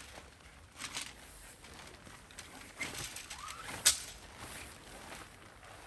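Tent parts being handled during setup: rustling with scattered clicks, and one sharp click about four seconds in. A short rising chirp comes just before the sharp click.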